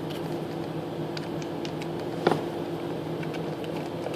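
Steady low mechanical hum of room background, with one sharp click a little past two seconds in and a few faint ticks.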